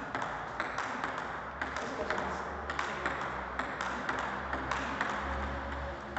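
Table tennis rally: the celluloid-type ball clicking off the paddles and bouncing on the table in a steady back-and-forth, a couple of sharp clicks a second.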